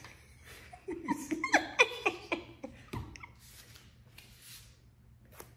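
A man laughing briefly, followed by a few soft breaths.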